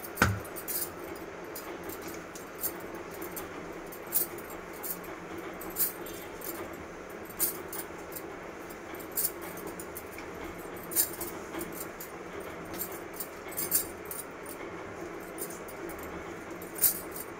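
Hands kneading dough on a granite countertop, with the bangles on the wrists clinking in short sharp chinks about once a second over a steady background hiss.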